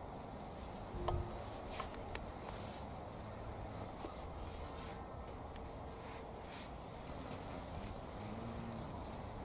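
Quiet outdoor ambience: a steady low rumble with a faint, high, pulsing trill that comes and goes. A few soft knocks and rustles come as a metal-framed garden kneeler stool is moved and sat on.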